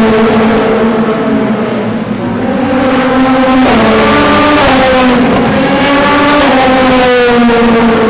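Prototype race cars passing one after another at full speed, each high engine note falling in pitch as the car goes by.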